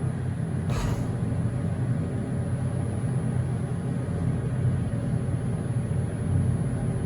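Sunrise elevator car travelling up, a steady low hum and rumble inside the cab, with one short knock just under a second in.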